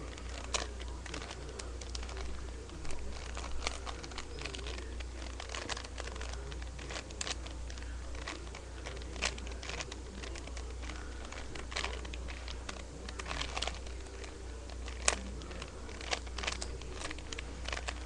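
Plastic Rubik's cube being turned, its layers clicking and clacking in quick irregular runs, with one sharper click about fifteen seconds in. A steady low hum runs underneath.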